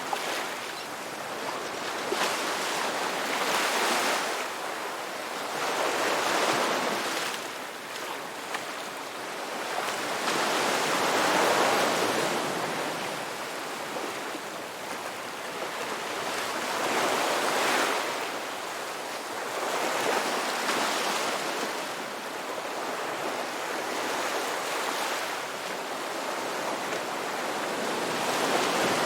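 Ocean surf: waves breaking and washing up the shore, a continuous rushing hiss that swells and ebbs every few seconds.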